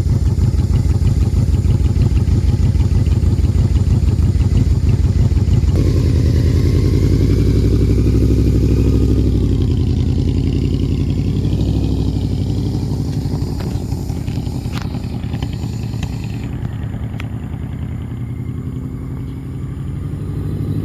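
2005 Yamaha Royal Star Venture's V4 engine idling steadily, then from about six seconds in pulling away with the engine note rising and falling, growing fainter over the last several seconds as the bike moves off.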